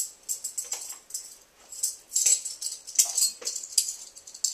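Creole seasoning rattling inside a plastic container as it is handled and shaken, in a series of short, bright rattles with a few clicks.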